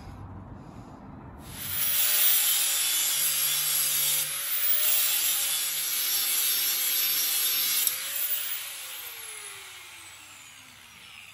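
Electric angle grinder grinding the hardened steel edge of a flail mower hammer blade to sharpen it. The grinding starts about a second and a half in and lasts about six seconds. The grinder then comes off the blade and winds down with a falling whine.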